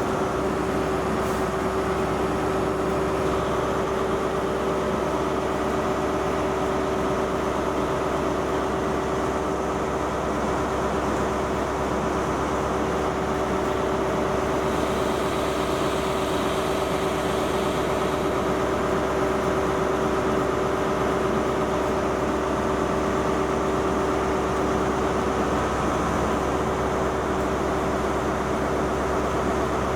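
Steady machine hum with a constant low tone, unchanging in level.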